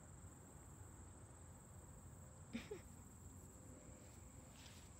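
Near silence with a faint, steady, high-pitched insect drone, and one brief short sound a little past halfway through.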